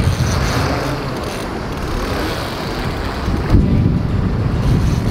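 Wind buffeting the microphone over the steady rush of a fast-flowing river, with a brief louder gust about three and a half seconds in.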